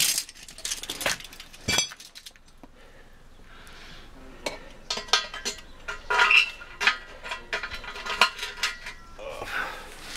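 Light metallic clinks and taps of steel pieces being handled, some ringing briefly: a few in the first two seconds, then a busier run through the second half.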